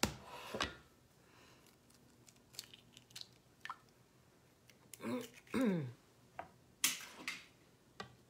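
An egg cracked into a small glass measuring cup and poured into a mixing bowl: a sharp clink of glass at the start, a few light taps of the shell on the cup's rim, a brief sound sliding down in pitch about five seconds in, and another sharp clink about seven seconds in.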